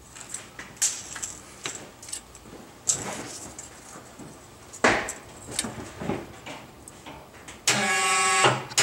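A few light knocks and clicks. Then, about a second before the end, a snow plow's electric hydraulic pump starts suddenly with a steady hum and runs for about a second, moving the plow.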